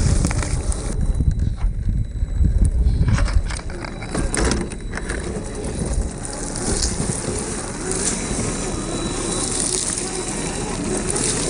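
Radio-controlled scale crawler driving over dirt and gravel: tyres crunching and grit crackling, with a faint thin electric motor whine in the second half. Gusty rumble of wind on the microphone in the first few seconds.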